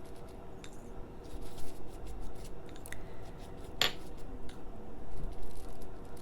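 Cabbage slices being brushed with olive oil and spices: soft handling and brushing with a few small clicks of kitchen utensils, and one sharper click about four seconds in.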